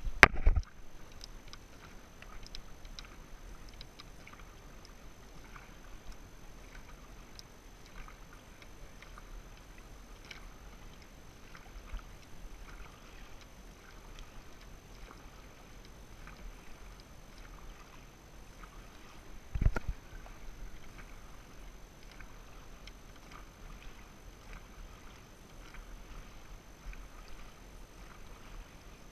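Dragon boat paddles dipping and splashing in the water as the crew strokes, with water moving along the hull. A thump right at the start and another about two-thirds of the way through.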